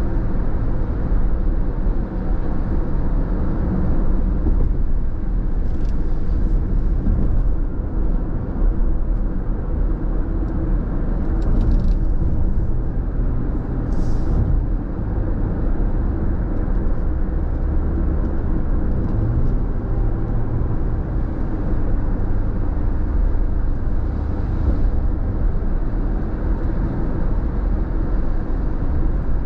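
Car cabin road noise at highway speed: a steady low rumble of tyres and engine on wet pavement, with a few faint brief high ticks.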